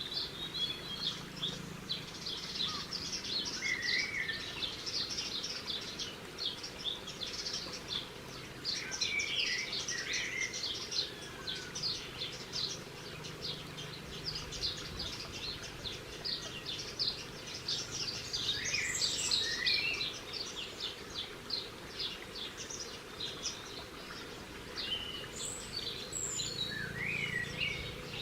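Small birds chirping and twittering in quick runs of high notes, with a few lower whistled notes mixed in, over a steady low background noise.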